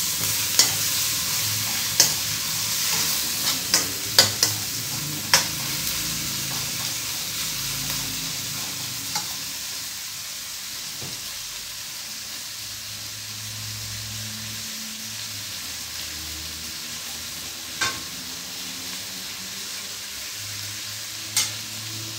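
Onions, ginger-garlic paste and curry leaves frying in hot oil while being stirred: a steady sizzle that quietens over the first ten seconds or so. Sharp clicks of the utensil striking the pan, most of them in the first five or six seconds and a few more later.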